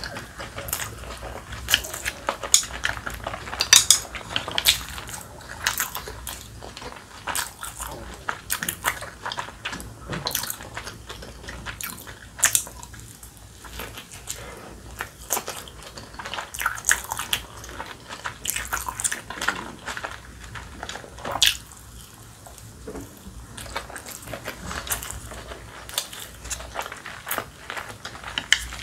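Close-miked eating of a large steamed dumpling: biting and chewing with many short, wet mouth clicks and smacks, and now and then chopsticks tapping the dishes.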